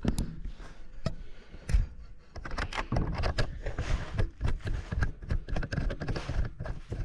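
Irregular knocks, clicks and scraping from hands and tools working on a stripped wooden drawer, with no steady machine sound.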